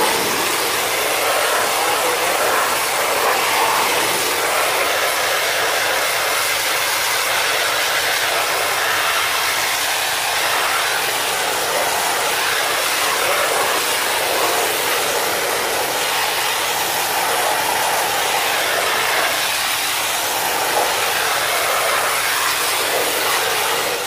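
High-pressure water jet from a jet-pump spray gun hissing steadily as it blasts the fins of a split-type air conditioner indoor unit's coil, washing out caked-on dust.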